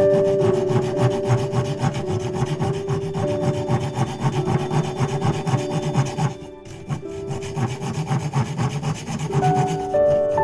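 Saw cutting through wood in quick, rhythmic back-and-forth strokes, with a brief pause about six and a half seconds in. Soft background music with held notes plays underneath.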